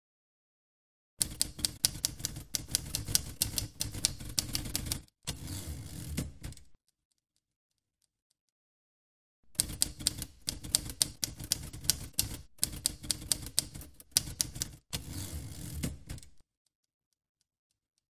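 Manual typewriter typing: quick runs of key strikes, several a second, in two bursts of about four and five seconds. Each burst is followed by a shorter, smoother stretch of mechanical noise, with silent gaps between.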